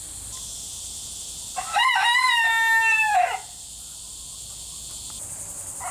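Rooster crowing: one full crow of nearly two seconds a little over a second and a half in, and a second crow starting right at the end.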